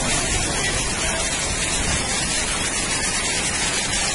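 Torrential rain pouring down steadily on a flooded street, a dense hiss of rain and running floodwater that rasps on the phone's microphone.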